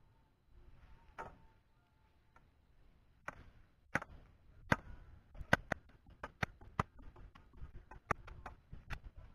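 Close handling noise: sharp, irregular clicks and taps that begin about three seconds in and come thicker toward the end.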